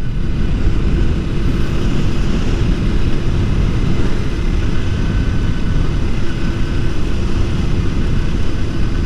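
Motorcycle on the move: a steady rush of wind over the microphone with the engine's even hum underneath.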